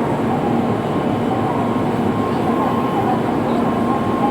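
Steady Shinkansen platform noise: an even hum and hiss with a constant high tone, likely from a train standing at the platform.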